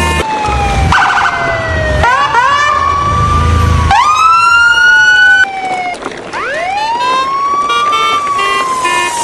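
Wailing siren, its pitch sweeping slowly up and down several times, with extra rising, whistle-like glides layered over it around two to four seconds in.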